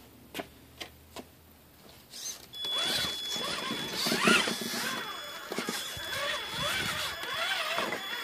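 Traxxas Summit RC crawler's electric motor and geared drivetrain whining as the truck climbs over rocks, its pitch rising and falling with the throttle, with a steady high-pitched whine on top. It starts about two and a half seconds in, after a few light clicks.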